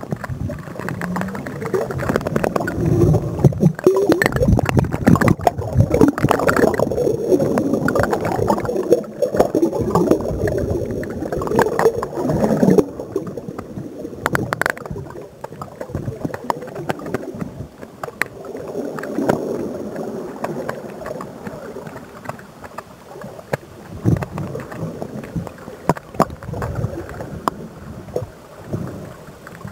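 Churning, gurgling underwater water noise picked up by a digital camera held underwater on the end of a landing-net pole, with scattered sharp knocks. It is busiest in the first half and calmer after about thirteen seconds.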